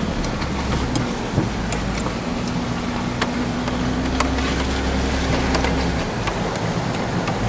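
Jeep engine running steadily at a slow off-road crawl, heard from inside the cab; its steady note drops away about six seconds in. Scattered sharp ticks are heard throughout.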